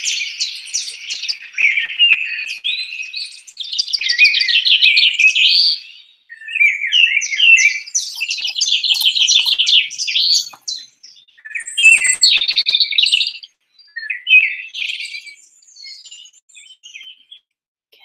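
Recorded dawn chorus of songbirds: quick chirps and trills in phrases with short pauses, dying down to scattered, quieter calls over the last few seconds.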